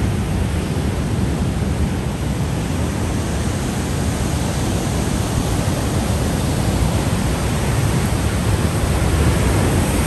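Ocean surf breaking and washing over coastal rocks, a steady rushing noise, with wind buffeting the microphone.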